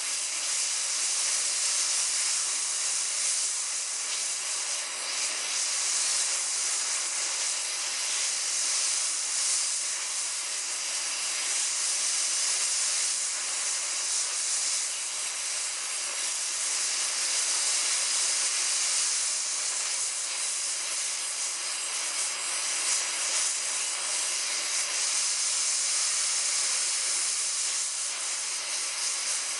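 Propane torch burning with a steady hiss, its flame held on a stuck brake drum retainer screw to heat it red hot so that it will turn out.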